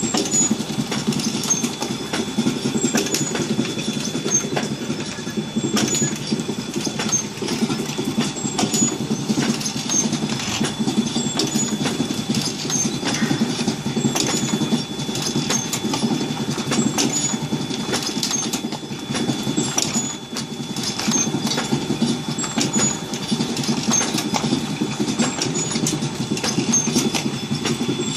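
Automatic pot-filling machine running: a steady mechanical rattle and rumble, with clicks and short high chirps repeating about once a second.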